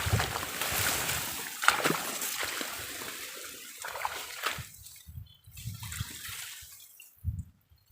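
Water splashing and trickling, with a few sharper splashes, fading away about five seconds in; low muffled bumps follow.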